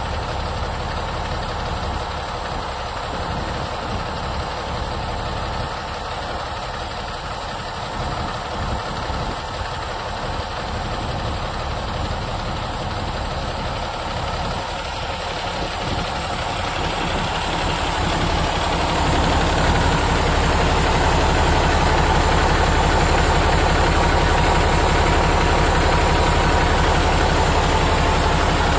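Cummins ISM 10.8-litre six-cylinder diesel engine of a 2006 International 7600 dump truck idling steadily. It grows louder about two-thirds of the way in and stays louder.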